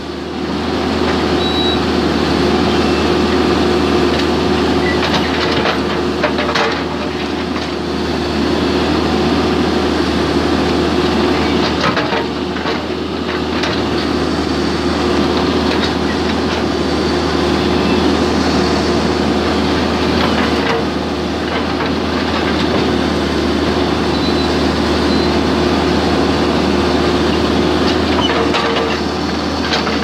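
John Deere 310K backhoe loader's diesel engine running steadily under work, with a few knocks and cracks scattered through.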